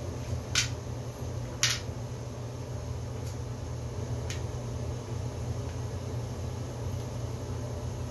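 Short clicks and taps of alphabet puzzle letter pieces knocking against a wooden puzzle board as they are handled and fitted in: two sharper taps about half a second and a second and a half in, then a couple of fainter ones, over a steady low hum.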